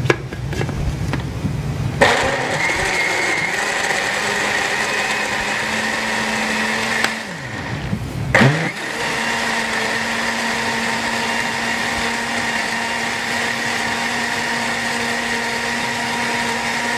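Countertop electric blender running, blending banana, milk and chocolate sauce into a smoothie. Its motor runs steadily from about two seconds in, winds down about seven seconds in and spins back up a second or so later, then runs steadily again.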